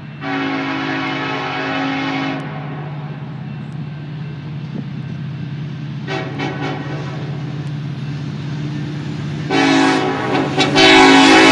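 Diesel locomotive's air horn sounding for a grade crossing as the train approaches: one long multi-tone blast, a brief short sounding about six seconds in, and another long blast starting near the end, over a steady low drone.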